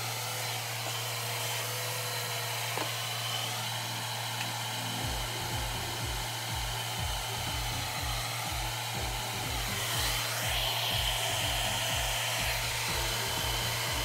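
A budget handheld hair dryer running steadily, blowing air through long hair. It makes an even rushing hiss with a steady high whine.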